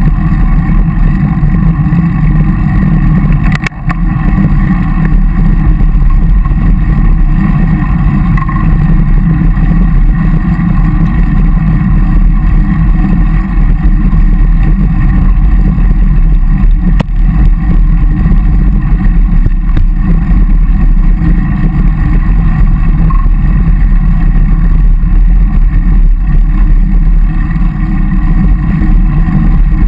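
Wind buffeting the microphone of an action camera on a moving road bike: a steady, loud low rumble that dips briefly near 4 seconds in.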